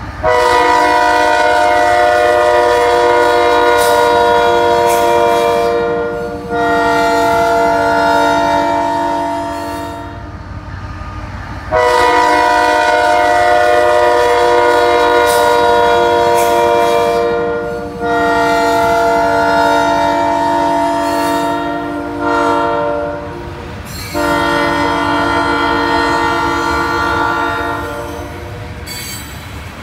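CSX diesel freight locomotive's multi-chime air horn blowing a series of loud long blasts, with one short blast a little before the last long one, over the low rumble of a loaded coal train rolling past.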